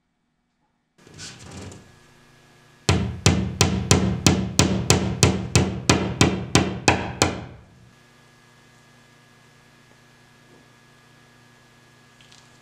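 Steel ball-peen hammer tapping a small nail into a wall: about fourteen sharp, evenly spaced strikes, roughly three a second.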